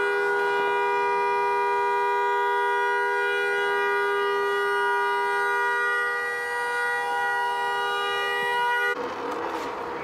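A car horn sounding continuously: a steady two-note chord held without a break, which cuts off suddenly about nine seconds in.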